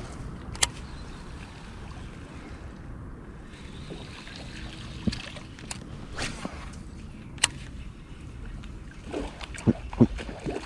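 Light water sounds around a fishing kayak under a steady low rumble, with a few sharp, short clicks and knocks spread through.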